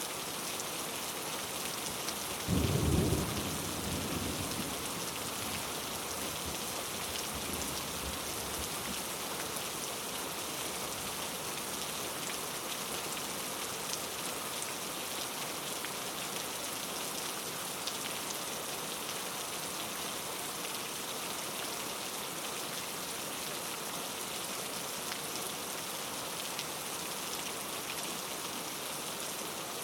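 Steady heavy rain falling. About two and a half seconds in a thunderclap breaks, and its rumble dies away over the next several seconds.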